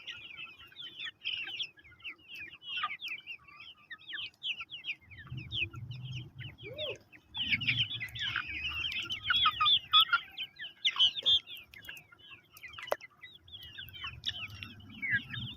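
Chickens clucking, with many short high chirps throughout, busiest from about eight to eleven seconds in. A low rumble comes and goes under them from about five seconds in.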